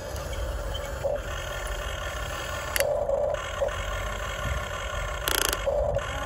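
Huina RC excavator's small electric motors and gearboxes whining as the cab swings and the boom lifts, with short rasping bursts and one brief louder scrape about five seconds in.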